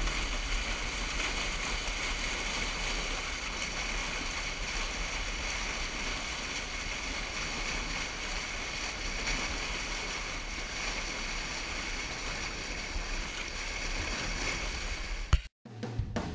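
Steady rush of river water flowing over shallow rapids, heard close to the water surface. Near the end it cuts off after a sharp click, and music with a drum beat starts.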